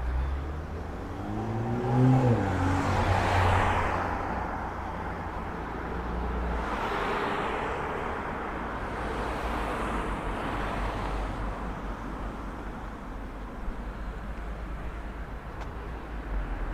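Street traffic: a car passes close by about two seconds in, its engine note dropping in pitch as it goes past, followed by more vehicles passing, with steady low road rumble.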